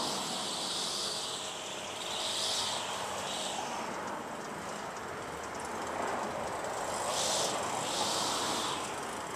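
Steady outdoor back-yard ambience: an even background rumble and hiss, with several short swells of higher hiss that come and go.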